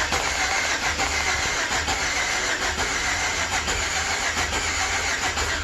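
2008 Chevrolet Express van's engine being cranked on the starter for about five and a half seconds, a steady churning that starts and stops abruptly, while a scope records the cylinders of an engine with a misfire.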